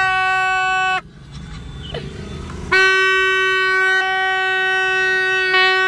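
Green plastic vuvuzela-style horn blown in two long, steady blasts on the same note: a short one lasting about a second at the start, then a longer one beginning a little under three seconds in.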